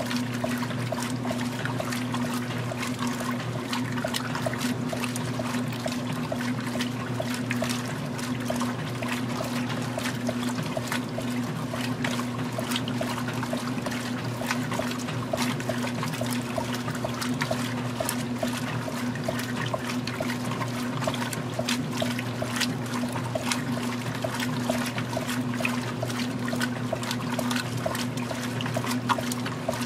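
Magic Chef 20-pound top-load washing machine agitating during its wash cycle: water sloshing and churning around the clothes in regular swishes over a steady motor hum.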